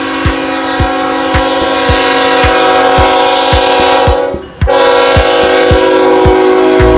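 Diesel locomotive horn blowing one long sustained chord, broken briefly about four and a half seconds in, over a steady low thumping about twice a second.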